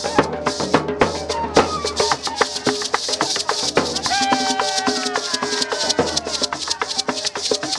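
Traditional cumbia played live: hand-struck drums and a shaken rattle keep a fast, dense beat, with a pitched melody line gliding and stepping over it.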